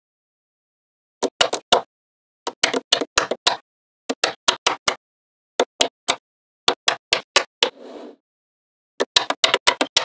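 Magnetic balls clicking sharply as they snap onto one another, in quick clusters of several clicks every second or so. A brief soft rustle comes near 8 seconds.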